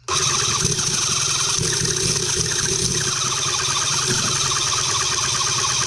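Electric starter cranking a Cison L4-175 miniature four-cylinder flathead engine, a steady mechanical whir that starts abruptly, with the engine turning over but not catching. The owner takes it to be flooded.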